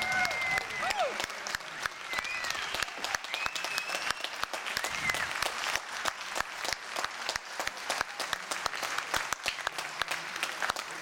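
Audience applauding, with a few whoops and cheers in the first few seconds.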